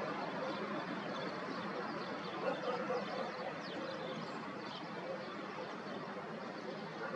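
Steady outdoor background noise with a few faint, high bird chirps near the middle and a single soft knock about two and a half seconds in.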